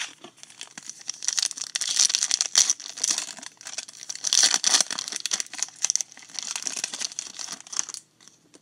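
Foil wrapper of a 2017 Topps Stadium Club card pack crinkling and tearing as it is opened and handled, a dense crackle that stops about eight seconds in.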